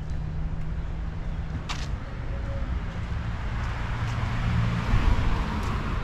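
A car going by on the street, its engine and tyre noise swelling to the loudest point near the end, over a steady low engine hum. A single click about two seconds in.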